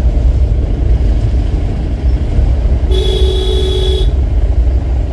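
Car travelling along a hill road, its engine and road noise a steady low rumble; about three seconds in, a vehicle horn sounds once for about a second.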